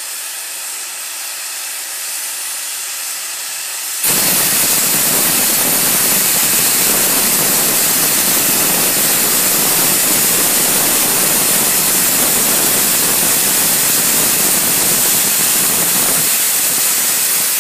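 LNER Y7 0-4-0 tank steam locomotive blowing off steam: a steady hiss, then about four seconds in a much louder, harsher rush of escaping steam starts suddenly and holds steady until it cuts off.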